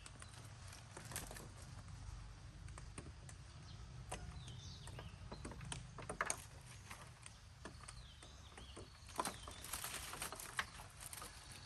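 Scattered light clicks and knocks, irregular and sharp, over a steady low background rumble.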